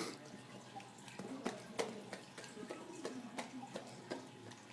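Dog chewing and smacking on a mouthful of noodles: faint, irregular wet clicks and smacks.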